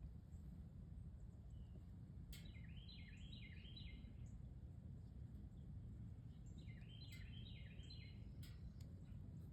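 A songbird singing twice, faintly, each song a quick run of five or six repeated slurred notes, over a steady low background rumble.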